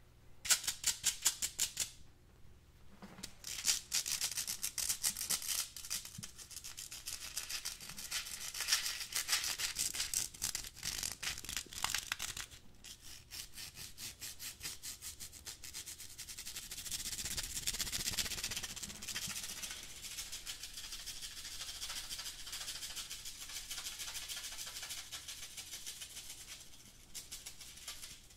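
Fingernails scratching quickly over a black wire-mesh container filled with beans or seeds, which rattle inside. Rapid, closely repeated strokes give way after about halfway to a steadier, continuous rasp.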